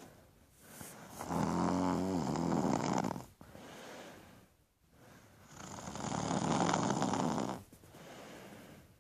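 A sleeper snoring: two loud, rattling snores about four seconds apart, each followed by a softer out-breath.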